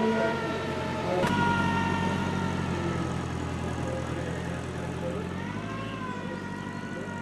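Slow-moving gyroscopic two-wheeled car giving a steady high-pitched whine of several tones. A low engine drone comes in after a click about a second in and drops away near the end, where the whine's pitch dips and rises again.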